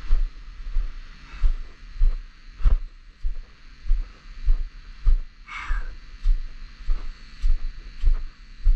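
Footsteps of someone walking with the camera, heard as regular low thumps about twice a second. A short higher sound comes a little past halfway.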